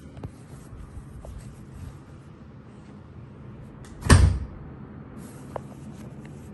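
A door banging shut once, about four seconds in, a sharp loud thump with a short ring after it. A few light clicks come before and after it.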